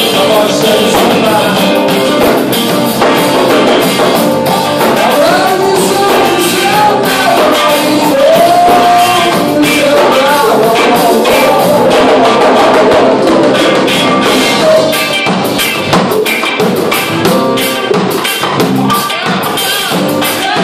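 A live band playing: a drum kit keeping a steady beat under acoustic and electric guitars and bass, with a voice singing over it, most clearly through the middle.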